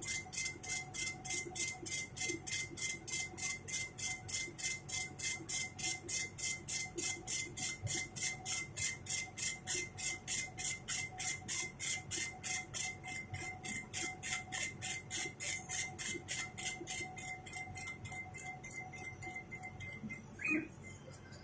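CNC machine running, with a steady high whine under a regular hissing pulse nearly three times a second. The pulse weakens over the last few seconds, and a brief clink comes near the end.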